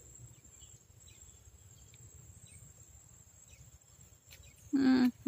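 Faint steady high-pitched drone of insects such as crickets, with faint short chirps repeating about once a second. A woman's voice starts near the end.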